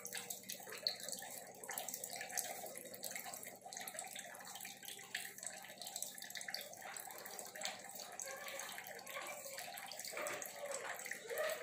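Steady hiss of a gas stove burner heating water in a pressure cooker, with faint small clicks of a knife cutting vegetables by hand.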